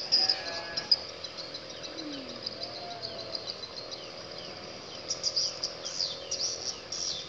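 Insects chirping in a fast, even pulse of about five chirps a second. The chirping fades in the middle and comes back louder about five seconds in, with a few faint falling chirps between.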